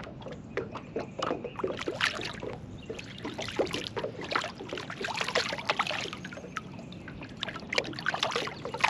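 A hooked white bass thrashing at the water's surface as it is reeled in beside the boat: a continuous run of small, irregular splashes and water slaps.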